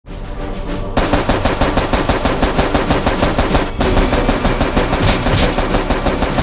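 Rapid automatic gunfire, about ten shots a second in an unbroken burst, starting about a second in and carrying on to the end.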